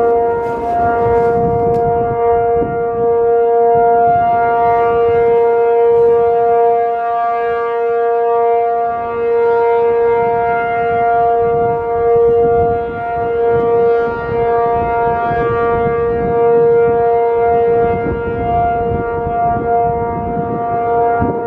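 ACA P-50 outdoor warning siren sounding the steady Alert signal: one held pitch that neither rises nor falls, loud throughout.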